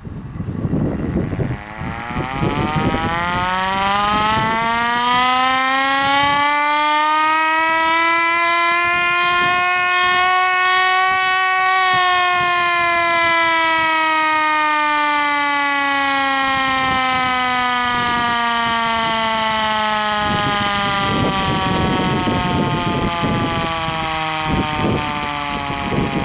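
1980s Hungarian LOT-1 air raid siren winding up and down once: its wail climbs steadily in pitch for about ten seconds, peaks, then slowly falls as it winds down.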